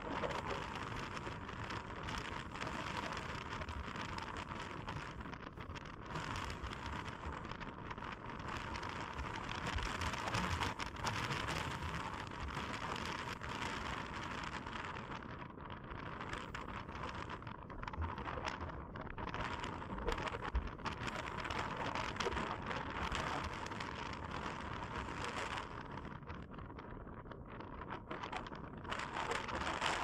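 Strong wind gusting over open moorland grass and buffeting the microphone, rising and falling in strength, with a lull near the end.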